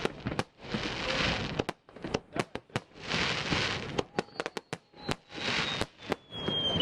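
Fireworks display: a rapid series of sharp bangs and cracks, with several bursts of dense crackling hiss from crackle shells. A thin high whistle falls slightly in pitch over the second half.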